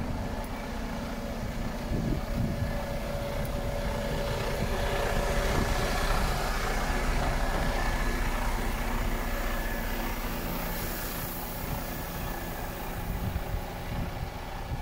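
Mercedes-Benz Actros 2645 truck's diesel engine idling: a steady low rumble with a faint steady whine over it.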